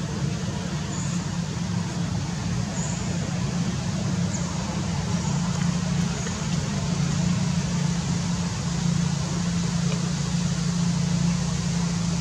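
A steady low mechanical drone over a constant noise bed, like traffic or an engine running, with a few faint high chirps in the first half.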